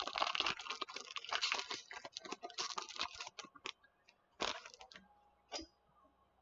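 Foil booster-pack wrapper crinkling and trading cards being handled, a quick run of crackles and clicks that thins out about four seconds in, with two last crackles after it.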